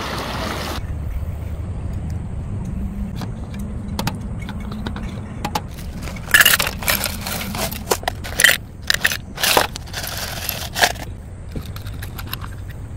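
Scattered clicks, scrapes and rustles of things being handled, with several louder scraping bursts in the second half, over a low steady hum.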